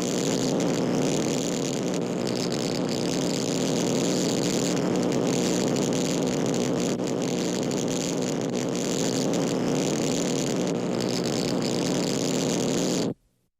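Electric arc welder's arc crackling and sizzling steadily, then cutting off suddenly near the end.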